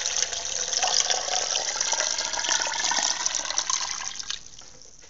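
Cold water pouring steadily into a cooking pot around a lidded glass jar of peaches, stopping about four seconds in.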